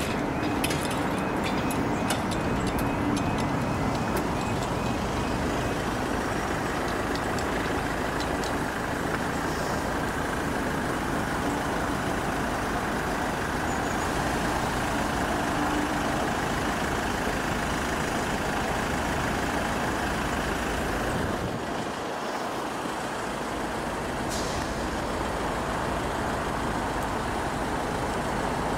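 Steady rumble of motor vehicles running, with a few faint clicks in the first few seconds.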